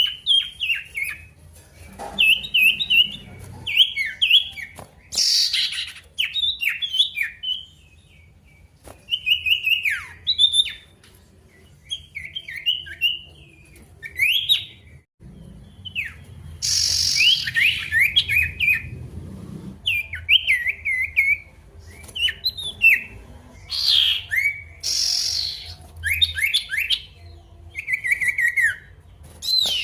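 Male sirtu songbird singing loudly: rapid strings of short, downward-sliding chirps in phrases separated by brief pauses, with a few short hissy bursts in between.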